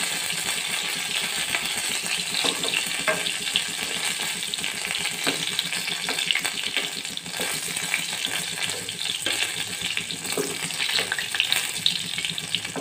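Minced mutton kababs sizzling and crackling as they deep-fry in hot oil, a steady frying hiss with occasional sharper pops.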